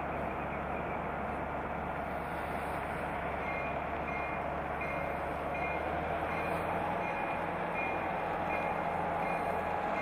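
Norfolk Southern diesel locomotive running with a steady low drone, its engine note changing and getting a little louder about six seconds in as it puts out a puff of exhaust. A short high-pitched beep starts repeating, about twice a second, a few seconds in.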